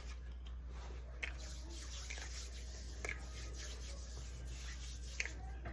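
Faint rubbing or scraping with a few soft clicks, over a steady background hiss.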